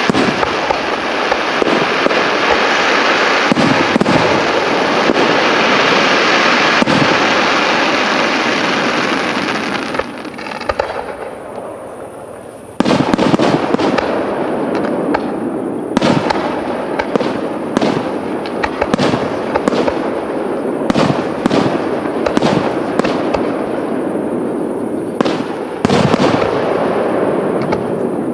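Aerial firework shells launching and bursting in a display. For about the first ten seconds it is a dense, unbroken barrage; it dies down for a couple of seconds, then resumes abruptly as a string of separate sharp bangs.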